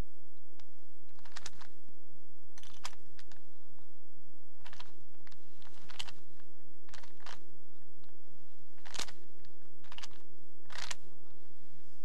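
A 3x3 Rubik's Cube being turned by hand: irregular plastic clicks as its layers are twisted, about a dozen spread unevenly over the seconds, over a steady hum.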